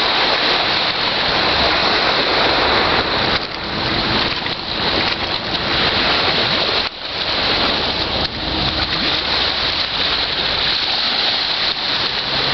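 Small waves lapping and washing over a pebble beach, a steady rushing hiss with a brief lull about seven seconds in.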